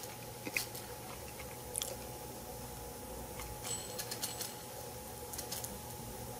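Vacuum-tube transmitter running with a steady low electrical hum and faint steady tones, broken by scattered sharp crackling clicks, in small clusters about two seconds apart.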